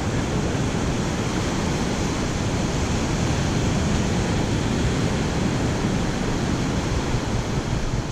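Ocean surf breaking and washing up the sand in a steady rush, with wind buffeting the microphone.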